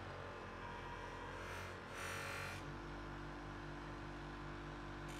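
Bench grinder motor running with a steady hum while a steel knife blade is held against its spinning wheel; a grinding hiss swells for about half a second, about two seconds in.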